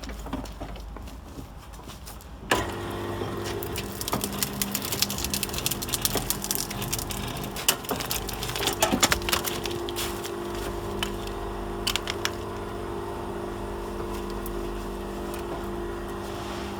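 V-080 cable-stripping machine with two rotary knives switching on about two and a half seconds in and running with a steady motor hum, while aluminium-armoured cable feeds through its knives with repeated sharp cracking and snapping as the armour and sheath are slit.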